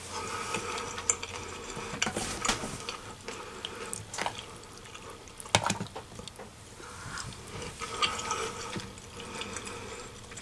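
A fork clinking and scraping on a dish while food is eaten, in sharp irregular clicks, over the steady hum of a washing machine running.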